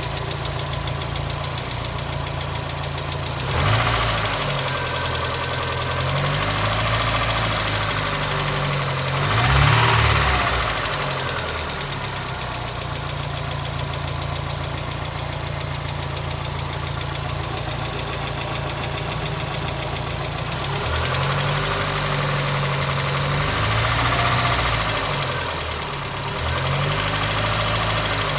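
1992 Mazda Miata's 1.6-litre twin-cam four-cylinder idling with a steady tick, revved briefly several times, the biggest rev about ten seconds in. The owner is unsure whether the tick is lifter tick or rod knock; oil pressure seems fine.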